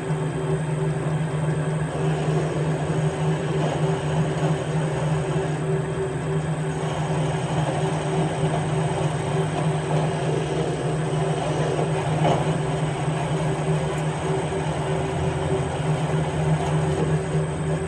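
Metal lathe running steadily with a constant low hum and a higher steady tone, as a parting tool cuts into a shrink-fitted steel Morse taper to part it off.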